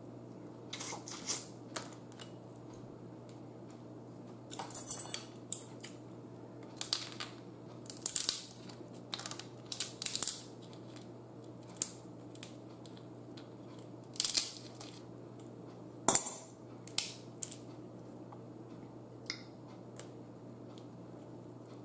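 Boiled crab shell being cracked and picked apart by hand, in scattered short crackles and snaps with a few sharper cracks in the second half. A faint steady low hum runs underneath.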